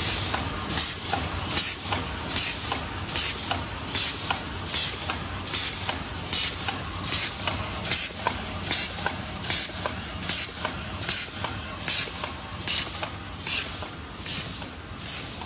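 Ripple double-wall paper cup machine running: short, sharp hisses of compressed air repeat evenly about once every 0.8 seconds, over a steady low machine rumble.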